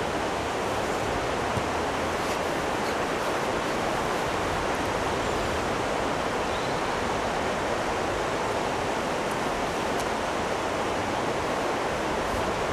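Steady rushing of river water pouring over a weir, an even hiss-like roar that holds constant throughout, with a few faint clicks.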